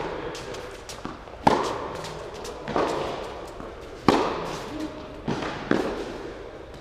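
Tennis rally: rackets striking the ball and the ball bouncing on the court, about five sharp hits roughly a second and a half apart, each ringing out in the reverberant indoor hall. The two loudest are the near player's strokes.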